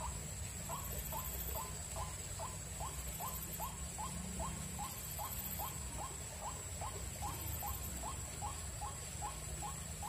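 White-breasted waterhen calling: a long run of short, evenly spaced notes, about three a second. A steady high-pitched whine runs underneath.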